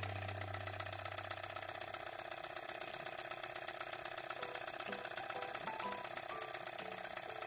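Brass model Stirling engine running under an alcohol-burner flame, a rapid, steady mechanical ticking clatter from its pistons and flywheel as it spins the small generator motor.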